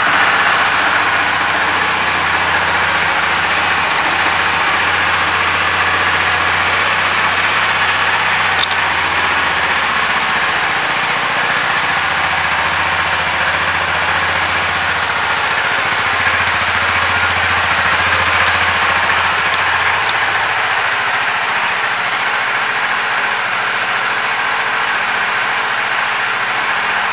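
Honda CBR300R's single-cylinder engine idling steadily.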